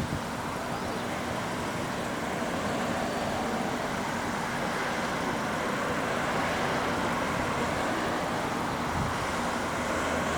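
Distant jet airliner noise: a steady rushing roar with no clear pitch, slowly growing louder.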